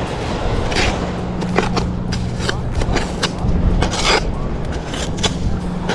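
Gloved hands digging and scraping through coarse coral sand and rubble, a string of short scrapes and knocks with a longer scrape about four seconds in, over a steady low hum.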